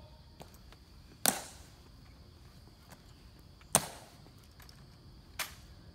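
Three sharp single clicks, a second or two apart, against quiet open-air background.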